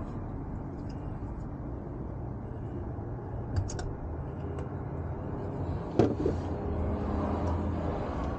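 A few small clicks and a sharper knock, parts and hand tools handled against metal while a new oil pressure switch is fitted, over a steady low background noise.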